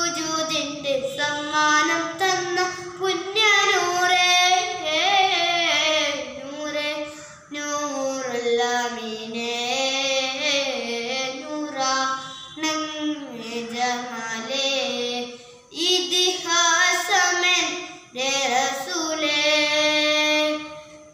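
A young boy singing a madh (Islamic devotional praise song) solo without accompaniment, in long melodic phrases with gliding, ornamented notes and short breaks for breath; the singing stops right at the end.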